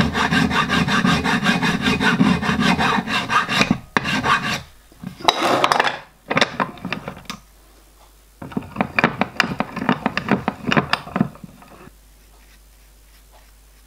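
Flat hand file scraping back and forth along the edge of thin 0.5 mm sheet metal, glued to a backing plate and clamped in a bench vise, to tidy up the edge. The strokes come quickly and steadily for about four seconds, then in shorter spells with pauses, and stop about eleven seconds in.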